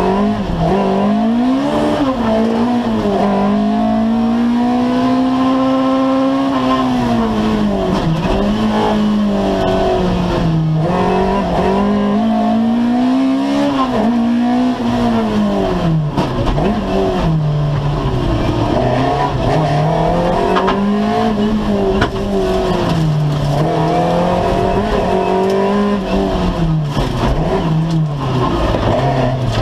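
Two-wheel-drive rally car's engine heard from inside its stripped-out cabin, driven hard: the pitch climbs and drops over and over as the driver accelerates, lifts and brakes, over steady road and tyre noise.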